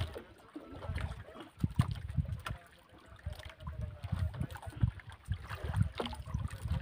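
Seawater lapping and sloshing against the side of a wooden outrigger boat, with wind buffeting the microphone in uneven low gusts and a few sharp light knocks.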